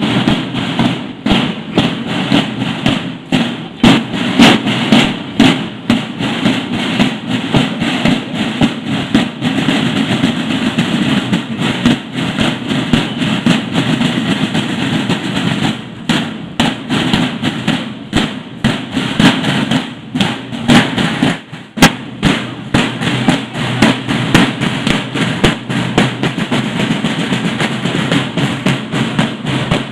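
School marching band's snare drums playing a continuous marching cadence of rapid strokes and rolls.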